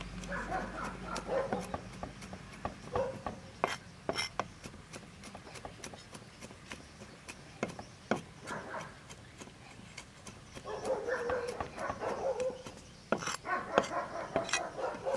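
A heavy cleaver chopping garlic on a thick wooden chopping board: a run of sharp, uneven knocks. An animal's calls come in between at times.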